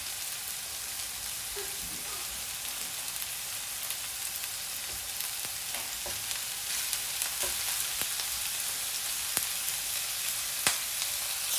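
Diced onion, carrot and peas sizzling steadily in hot oil in a frying pan while boiled potato is crumbled in by hand. A few sharp clicks of the wooden spoon against the pan come in the second half.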